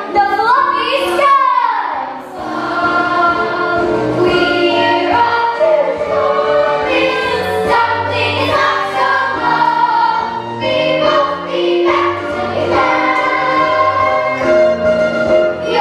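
A group of young voices singing a stage-musical song together over an instrumental accompaniment with a bass line. It opens with a swooping vocal glide.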